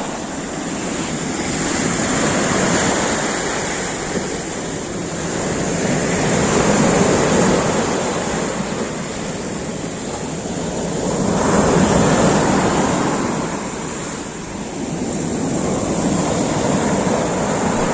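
Sea waves washing onto a beach, the surf swelling and easing about four times, every four to five seconds.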